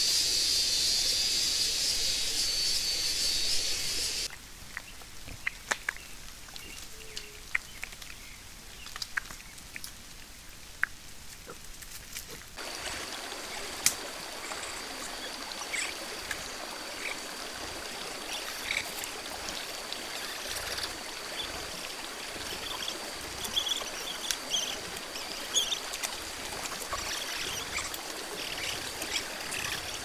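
Natural outdoor ambience from trail cameras in three sections. First comes a loud, high, even hiss for about four seconds, then a quieter stretch with scattered short clicks and ticks. From about twelve seconds a steady high whine with scattered short chirps, typical of night insects, runs to the end.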